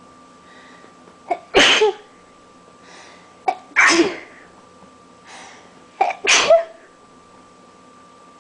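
A person sneezing hard three times, about two and a half seconds apart. Each sneeze is preceded by a faint intake of breath and a short sharp catch, allergy sneezes coming one after another.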